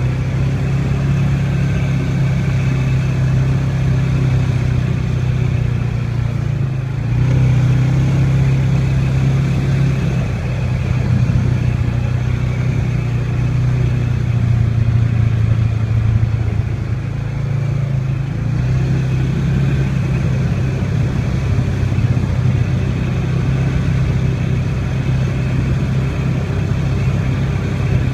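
ATV engine running steadily under way, a constant low hum whose note shifts slightly about seven seconds in and again around eighteen seconds.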